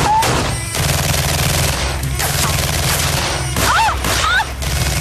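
Rapid, dense gunfire, many shots overlapping. A woman screams about three and a half seconds in.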